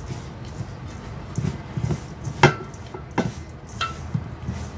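Hands mixing dough in a bowl: soft handling noise with three sharp clinks and knocks against the bowl, the loudest about two and a half seconds in.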